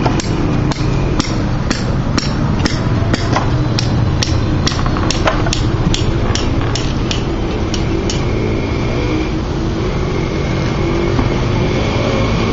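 Hammer blows knocking wooden concrete formwork loose, at a steady pace of about two a second, stopping about eight seconds in. A steady low hum runs underneath.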